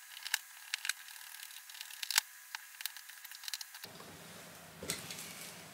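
Light metal clicks and scrapes of a small screwdriver turning a screw on a Bing carburetor body, a quick run of ticks for the first few seconds and one more near the end.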